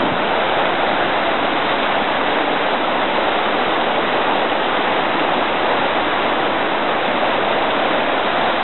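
Water rushing steadily over rocks where a stream pours into a lake.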